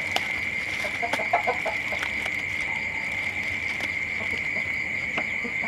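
Crickets trilling in one steady, unbroken high-pitched drone. About a second in come a few short crinkles from a plastic bag being handled with tapioca starch inside.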